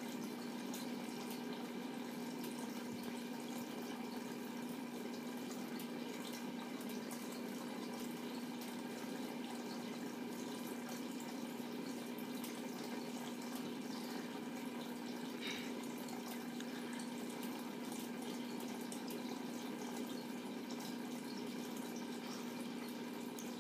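Small aquarium running: water bubbling and trickling over a steady electric hum from the tank's pump.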